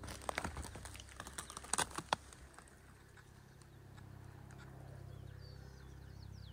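A quick, irregular run of sharp clicks and knocks for about two seconds, the loudest near the two-second mark. Then a low steady hum, with faint high bird chirps near the end.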